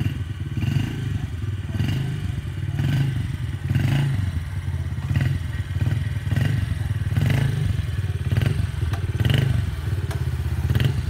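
Small Yamaha kids' dirt bike engine running, pulsing louder about once a second as the throttle is blipped while the bike creeps across the grass.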